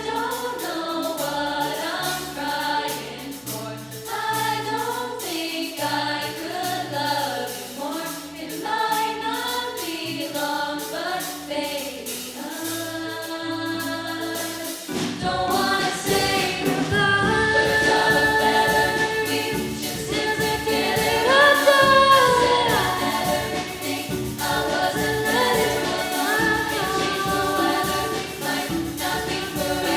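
A choir singing. The sound grows fuller and louder about halfway through.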